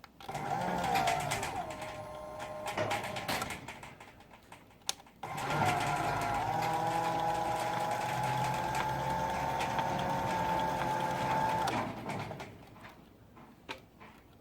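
Garage door opener motor running with a steady whine, set off by jumping its wall-button terminals with a wire: a run of about four seconds whose pitch sinks slightly as it settles, a click, then a longer steady run of about six seconds that stops abruptly. The opener working this way shows the wall button, not the opener, is at fault.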